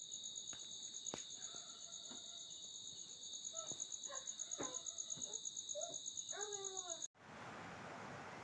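Insects trilling in a steady, high, rapidly pulsing buzz, with a few clicks and short descending calls mixed in. It cuts off abruptly about seven seconds in and gives way to a steady rushing noise.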